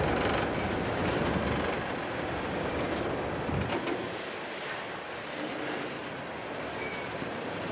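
Empty coal hopper cars of a coal train rolling past on the rails: a steady rumble and clatter of steel wheels. The deep rumble drops away about halfway through, and the sound eases slightly.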